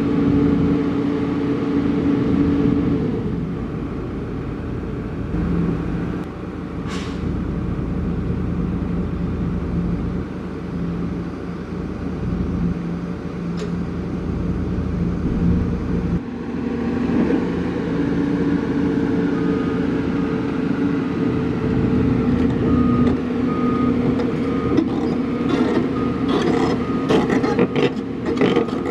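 Heavy diesel engine running steadily, its pitch shifting a couple of times. In the second half a backup alarm beeps in an even rhythm, and near the end there are rapid metallic clanks and rattles.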